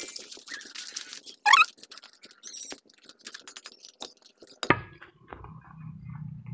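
Footsteps and rustling of leaves and ground litter while walking along a garden path, with a short sharp squeal rising steeply in pitch about a second and a half in. Near five seconds a sharp knock, then a low rumble.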